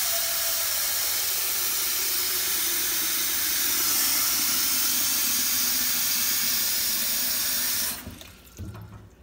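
Kitchen faucet running full into a pot in a stainless steel sink, a steady rushing of water, shut off suddenly about a second before the end; a couple of light knocks follow.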